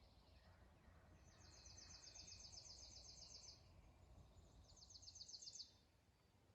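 Faint songbird trill: a rapid run of even, high notes lasting about two seconds, then a shorter second trill a second later.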